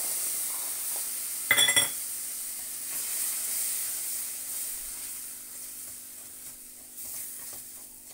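Milk hitting hot ghee-roasted semolina in a pan, sizzling at first and dying away as a wooden spatula stirs it through. A short, louder scrape comes about a second and a half in.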